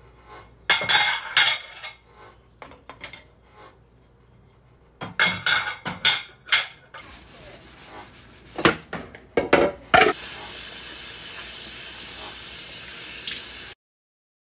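Dishes and kitchenware clinking and knocking while being washed and set in a dish rack, in three short bursts of clatter. Near the end, a steady hiss takes over for about three and a half seconds and cuts off suddenly.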